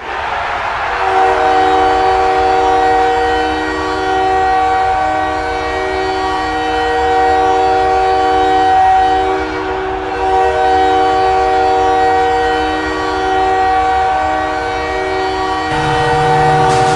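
Montreal Canadiens goal horn sounding: a loud, multi-note horn chord held for about fifteen seconds, its upper tones briefly thinning about ten seconds in.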